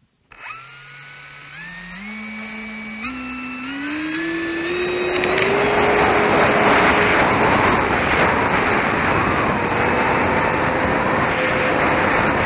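Electric motor and propeller of an Avios Super Tucano 1600mm RC model plane spinning up for takeoff. The whine starts suddenly and rises in pitch in several steps as the throttle is pushed up. From about five seconds in it holds at high throttle, with loud air rushing over the plane-mounted microphone as it takes off and climbs.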